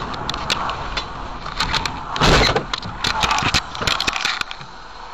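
Car collision heard from inside the car: steady road noise with a string of knocks and rattles, and a loud half-second crash about two seconds in, followed by more clattering.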